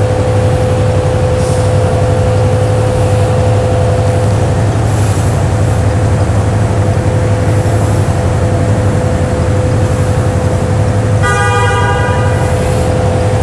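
A vehicle engine runs steadily with a constant whine. A short horn toot sounds about eleven seconds in.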